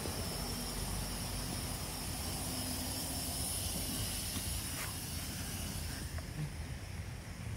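Steady outdoor noise of a truck yard: a continuous hiss over a low rumble, with a thin high-pitched whine held throughout and a few faint clicks.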